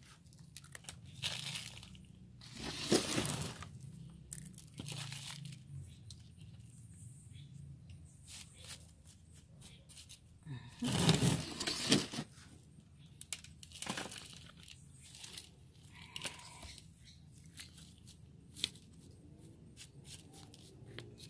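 Potting soil being scooped into a plastic nursery pot and pressed down by hand around a plant's roots. The soil rustles and crunches on and off, with two louder spells, one about three seconds in and one about eleven seconds in.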